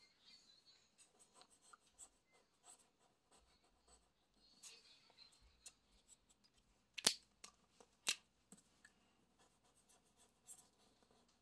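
Faint felt-tip marker strokes scratching on paper over a clipboard, with two sharp clicks about a second apart past the middle as one marker is put down and another picked up.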